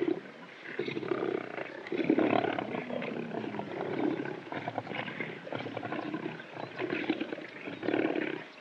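Well-fed lions growling and panting, a string of low, rough grunts coming about once a second.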